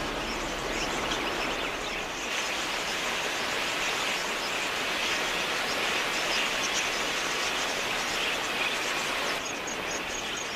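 A huge flock of wild budgerigars chattering, a dense steady mass of many overlapping high chirps.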